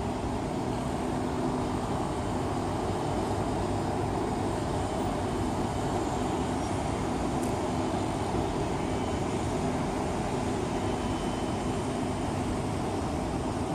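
Steady city traffic noise blended into an even hum, with a faint low drone running through it.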